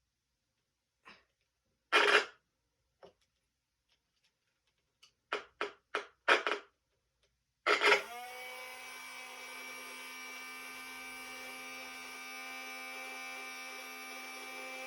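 Several sharp clicks and knocks of handling, then the animatronic's small electric motor starts abruptly and runs with a steady whining hum, its drive belt off.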